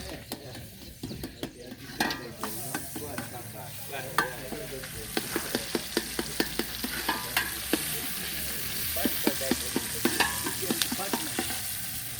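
Food frying in a pot while a spoon stirs it, knocking and scraping against the pot many times. A sizzling hiss comes up about two seconds in.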